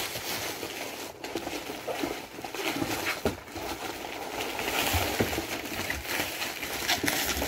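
Rustling and crinkling of cardboard and plastic packaging being handled and pulled out of a cardboard box, with now and then a light knock.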